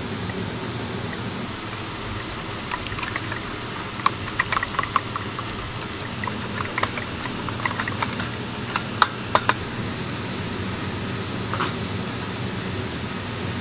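Wooden chopstick scraping and tapping against a small copper ladle while stirring melting sugar for dalgona, in scattered clicks that are busiest in the middle, over a steady low hum.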